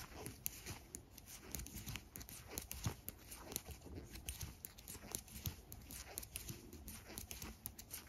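Faint, irregular clicking and rustling of knitting needles and yarn as a run of purl stitches is worked by hand.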